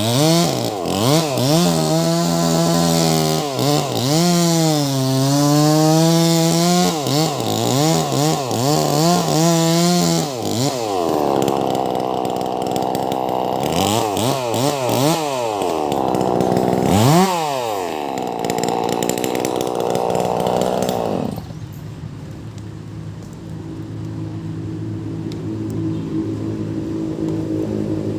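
Wagner 580 chainsaw with a 24-inch bar cutting along a large log at high revs, its pitch dipping and recovering as the chain bogs under load. It revs up and down twice, then drops to a steady idle about 21 seconds in.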